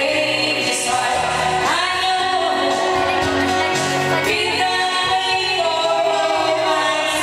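A woman singing karaoke through a microphone over a loud backing track, holding long notes.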